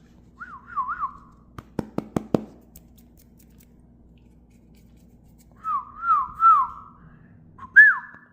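A man whistling short, wavering up-and-down calls to a cat. A few quick whistles come first, then a run of about four sharp clicks about two seconds in. More up-and-down whistles follow near the end.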